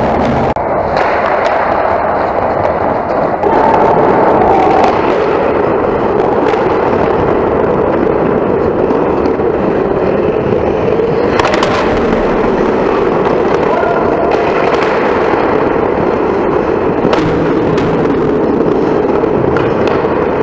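Ice hockey play in an arena: a steady scrape of skates on the ice, broken by sharp clacks of sticks and puck every few seconds.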